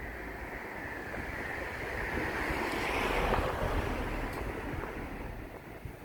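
Toshiba air conditioner outdoor unit running, a steady fan whoosh over a low hum, with a rushing noise that swells to its loudest about halfway through and then fades.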